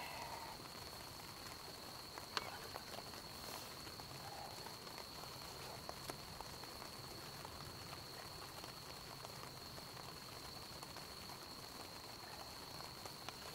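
Campfire crackling quietly, with a few sharp pops and snaps, the loudest about two seconds in. A steady high-pitched tone runs underneath.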